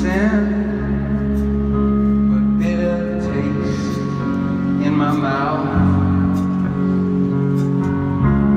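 Live band playing a slow song over a stadium sound system, held guitar and keyboard chords with a bass note change near the middle. A male voice sings in places.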